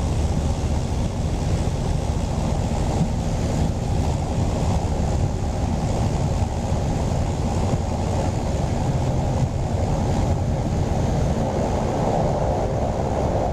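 Steady drone of a Cessna 208 Grand Caravan's single turboprop engine and propeller heard inside the cabin, a dense low rumble with rushing airflow noise and a faint high whine above it.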